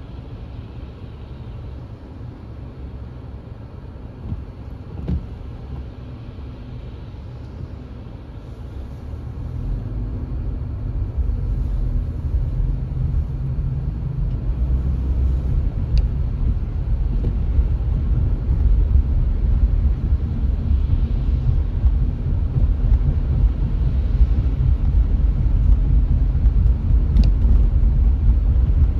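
A car's low, steady road and engine rumble heard from inside the cabin, growing louder about ten seconds in.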